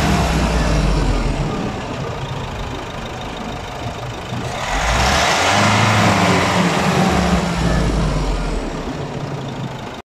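Nissan Navara double cab's engine revved twice, each rev rising from idle and dropping back, the second about halfway through. The sound cuts off suddenly just before the end.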